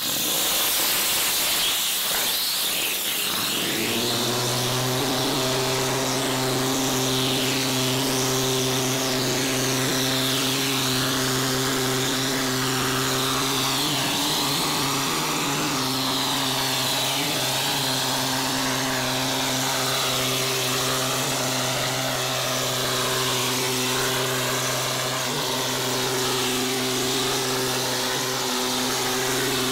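Plaster spray gun from a G4 plastering machine blasting mortar onto a wall with compressed air: a loud, continuous hiss. A steady machine hum sets in about four seconds in and runs on under the spraying.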